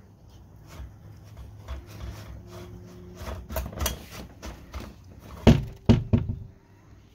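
A Belgian Sheepdog rooting through crumpled paper balls in a metal muffin tin for treats: a run of light knocks and clatters of the tin and paper, growing busier, with three loud knocks close together about five and a half seconds in.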